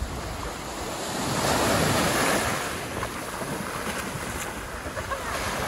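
Surf washing in over the shallows, a wave swelling and breaking about a second and a half in, with wind buffeting the microphone.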